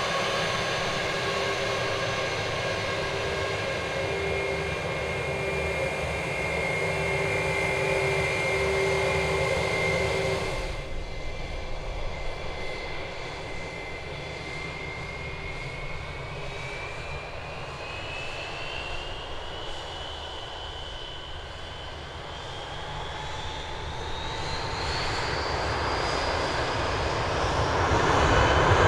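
Jet airliner's turbofan engines running with a steady whine. The sound changes abruptly about ten seconds in, after which the engine whine rises steadily in pitch and grows louder toward the end as the engines spool up.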